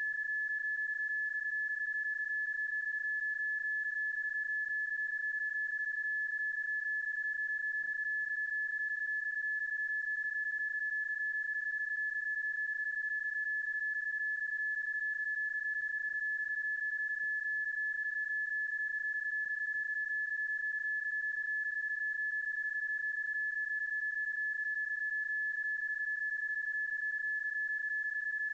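PSK31 data-mode audio: one steady, high-pitched tone, unchanging in pitch and level. It is a stretched and looped sound effect, not the tones of the actual contact, so it cannot be decoded.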